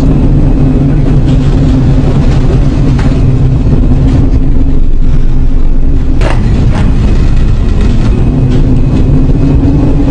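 Loud, steady low-pitched droning hum with a rumbling undertone, holding two steady low tones throughout, with a few faint clicks; this is the unexplained 'strange sound' that the recording presents.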